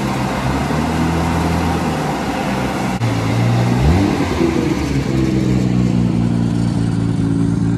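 Car engine running, then accelerating about four seconds in with a quick rise in pitch before settling on a higher, steady note, over a loud steady rushing noise.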